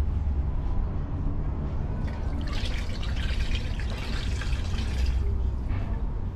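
Leftover soup broth poured from a bowl into a metal funnel drain, splashing and trickling for about three seconds from around two seconds in, over a steady low rumble.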